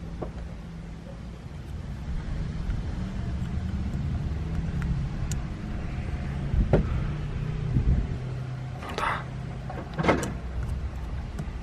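Knocks and clicks of hands working at a steering-wheel hub and horn contact, five or so in the second half, over a steady low hum. The horn itself does not sound.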